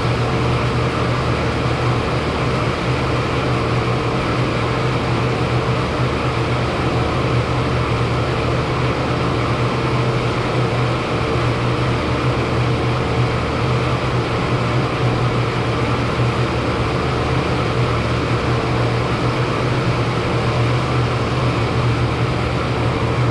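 40-ton Trane HVAC unit running steadily: a constant low hum with a fainter higher tone above it, over an even rushing noise.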